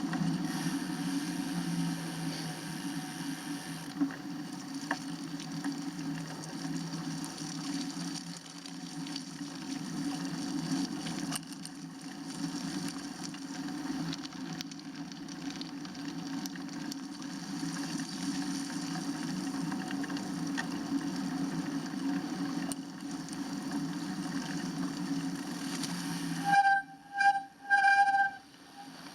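Steady rushing noise of a bicycle ride: wind on the microphone and tyres hissing on a wet road. Near the end the rush cuts off suddenly and about three short, loud electronic beeps sound.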